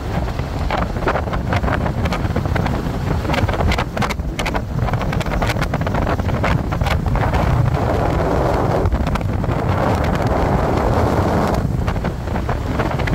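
Wind rushing over the microphone of an electric motorcycle riding at speed, a steady rush with frequent crackling gusts.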